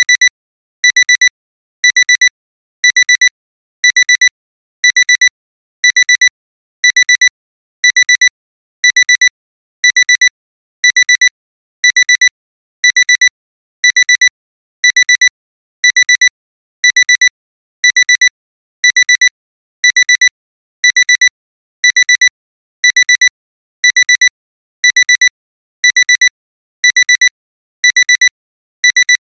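Digital alarm clock beeping: a quick burst of short, high electronic beeps about once a second, repeating without a break. It is the continuous alarm that sounds when the timer's countdown has ended.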